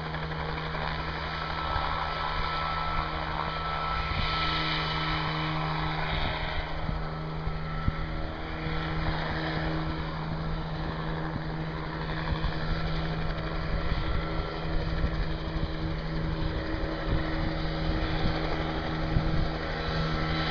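Small helicopter flying with its engine and rotor running steadily: a constant engine hum over a low rumble.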